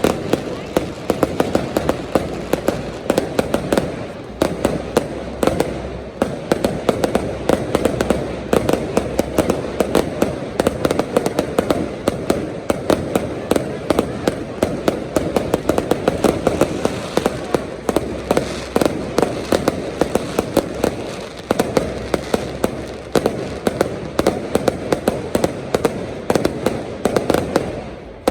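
Fireworks display going off in a dense, continuous barrage of sharp bangs and crackles.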